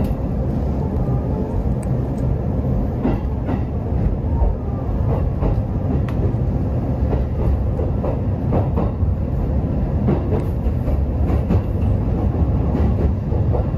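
Electric commuter train heard from inside the carriage as it rolls out of the station: a steady low rumble with irregular sharp wheel clicks over the rail joints.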